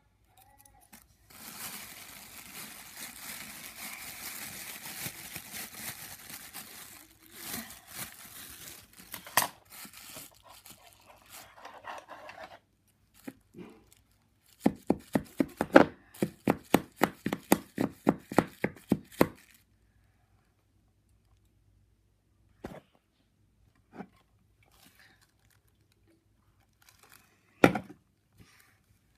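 Thin plastic bag crinkling and rustling as it is cut with scissors and worked into a glass tumbler. A quick run of sharp crinkling strokes follows, about four a second for some five seconds, as scissors are jabbed into the bag. Then come a couple of single taps.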